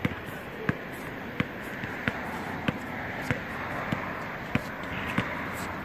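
Basketball dribbled on an outdoor court, a steady run of sharp single bounces at about three every two seconds.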